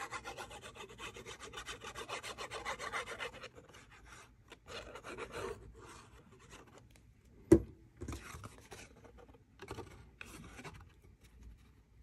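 The plastic tip of a fine-tip liquid glue bottle scraping quickly back and forth across cardstock as glue is spread, for the first few seconds; then softer cardstock handling with one sharp click about seven and a half seconds in.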